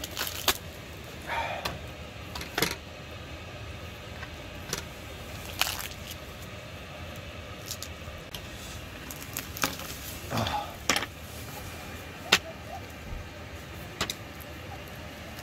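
Crisp roasted skin of a pork hock cracking and tearing as gloved hands pull the meat apart on a wooden board. Scattered sharp cracks come at uneven intervals, the loudest about twelve seconds in, with a couple of longer tearing sounds.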